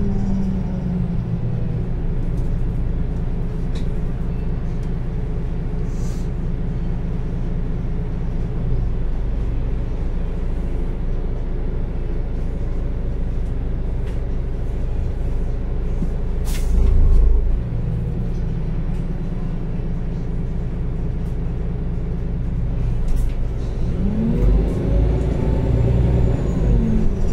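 Solaris Urbino 12 IV Mild Hybrid bus on the move, heard inside the passenger cabin: a steady low drivetrain hum. There is one brief loud burst about two-thirds of the way through, and a whine that rises and falls near the end.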